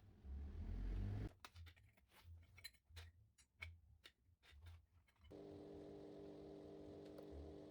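Light clicks and taps, roughly one or two a second, with soft low thumps, as of small metalwork being handled. About two-thirds of the way in, a steady, faint electric hum of several pitches sets in.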